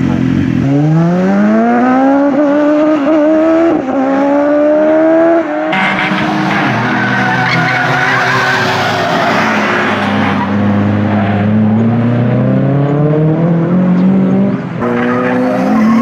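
Car engine revving hard and climbing in pitch, with a brief dip about four seconds in. From about six seconds a long tyre squeal runs for several seconds over the engine, which drops and then climbs again as the car slides.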